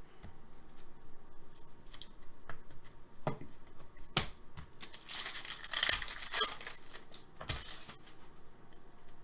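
Trading cards and their foil pack wrapper being handled: scattered clicks and slides, then a crinkling tear about five seconds in that lasts a second or so.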